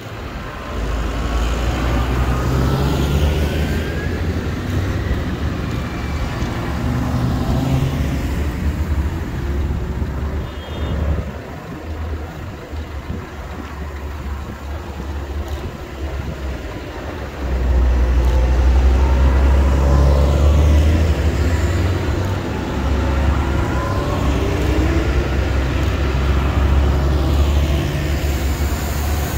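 Farm tractors driving past one after another, their diesel engines running with a heavy low drone that slides in pitch as each one passes. There is a quieter lull partway through when a car goes by between them.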